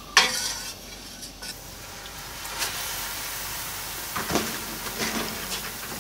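A metal utensil clatters against the pan once at the start. Then seasoning sauce and water sizzle and bubble steadily in the hot pan as they heat toward a boil, with a couple of light utensil clinks about four and five seconds in.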